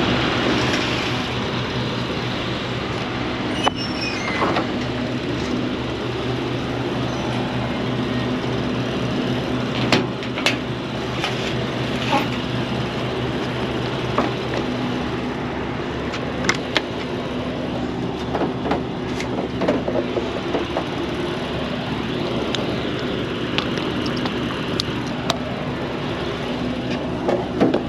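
A steady mechanical drone with a low hum, like an idling engine or generator, with scattered short clanks and knocks over it.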